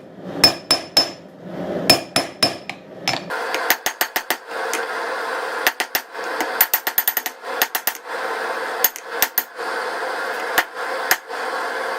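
Hand hammer striking hot 5160 spring steel on an anvil, drawing out a long taper: runs of quick blows, several a second, with brief pauses between runs and a metallic ring after some strikes.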